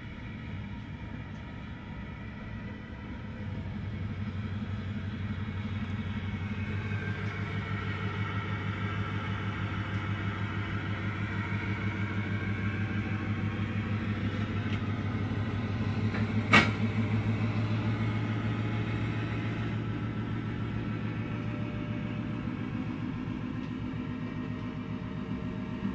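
A heavy engine running with a steady low rumble, getting louder a few seconds in, with one sharp click about two-thirds of the way through.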